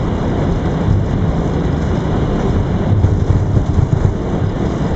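Airbus A321 flight deck during the takeoff roll: a loud, steady rumble of the engines and the wheels running on the runway.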